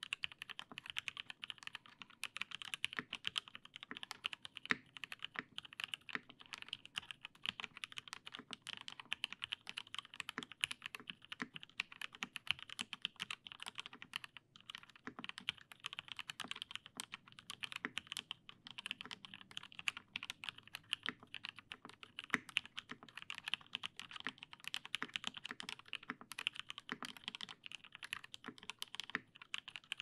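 Steady, fast typing on a PC Salamander mechanical keyboard with Krytox-lubed Gateron Giant switches, a PBT plate, GMK Shoko keycaps and no sound dampening: a dense run of keystroke clicks with a brief pause about halfway through.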